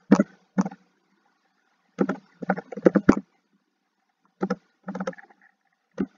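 Short, muttered fragments of a voice, broken by stretches of silence, with a single sharp click about three seconds in.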